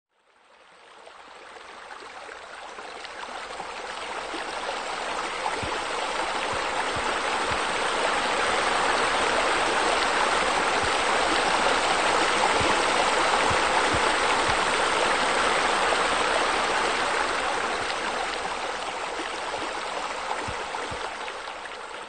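Steady rush of water spilling and splashing into a pool from its wall spillways. It fades in over the first several seconds and fades out near the end.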